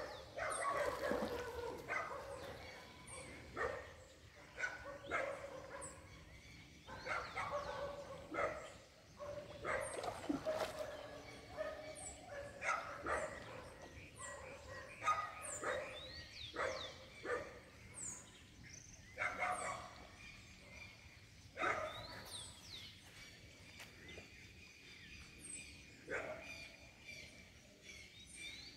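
Short animal calls repeating irregularly, about one every second or two, with quick high descending bird chirps throughout.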